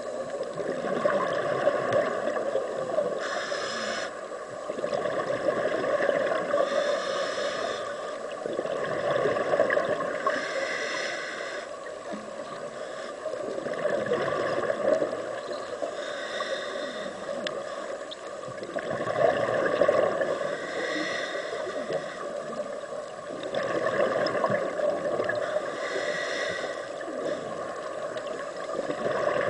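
Scuba diver breathing through a regulator underwater: hissing breaths and gurgling bubbles that swell and fade about every three to four seconds.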